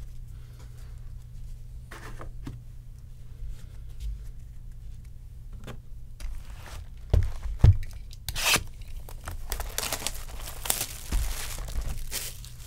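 Two low thumps of a card box set on the table, then several seconds of ripping and crinkling as a sealed 2020 Bowman baseball card box is torn open.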